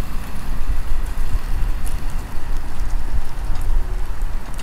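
Vehicle on the road, heard as a steady low rumble with road and wind hiss: a pickup truck towing a fifth-wheel RV under way.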